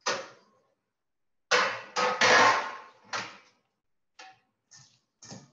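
Metal sheet pans clattering as they are handled and set down on the counter: one clank, then a loud run of clanks and rattling from about a second and a half in, then a few lighter knocks near the end.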